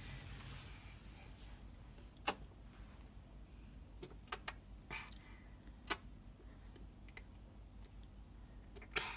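Quiet room tone broken by about six brief, sharp taps and clicks, the loudest about two seconds in.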